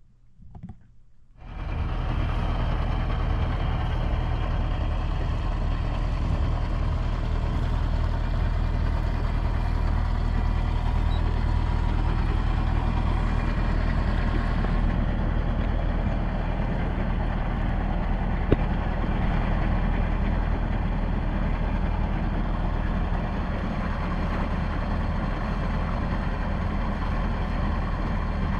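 Sailboat's diesel engine running steadily under way, a steady low drone that cuts in about a second and a half in.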